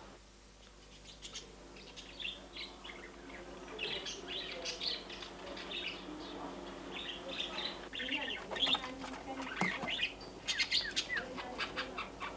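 Birds chirping: many short, high calls that begin about a second in and grow busier after a few seconds.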